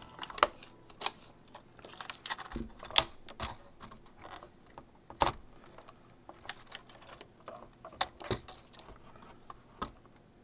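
Irregular clicks and knocks of small hard parts and tools being handled as an iMac is taken apart, with a handful of sharper clacks scattered through.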